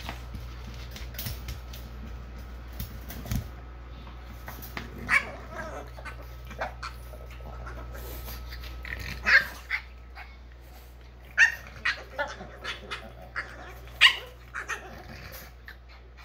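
Two French bulldogs, an adult and a puppy, playing through the bars of a wire pen: scattered short barks and yips with some growling, the sharpest coming in quick clusters about nine, eleven and fourteen seconds in.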